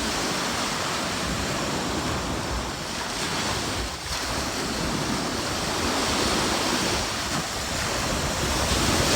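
Ocean surf washing onto the beach, a steady rush, with wind rumbling on the microphone.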